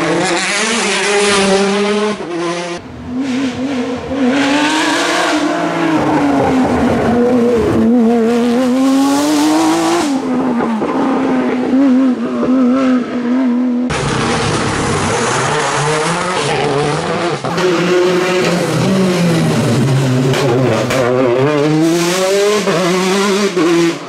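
Rally car engines at full throttle on a stage, the revs rising and dropping again and again through gear changes as the cars pass. Several short passes are cut together, with an abrupt change about three, ten and fourteen seconds in.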